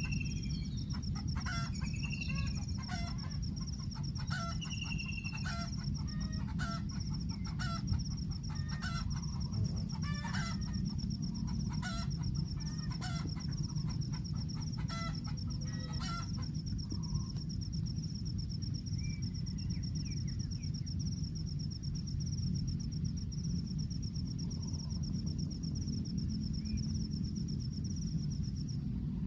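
Short bird calls repeat about once a second through the first half, with a few gliding whistles near the start. Under them runs a steady, fast-pulsing high insect trill that stops shortly before the end, over a constant low outdoor rumble.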